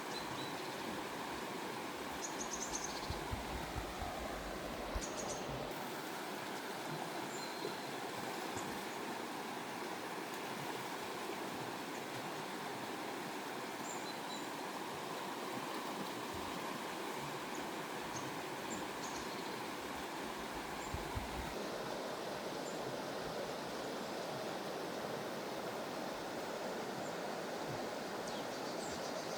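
Steady rushing of running water in a stream, with a few faint high chirps and occasional low bumps.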